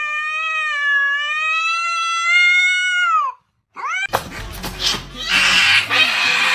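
A cat's long drawn-out meow, held for about three seconds and dropping in pitch as it ends. A short rising call follows, then a noisier stretch of jumbled sound near the end.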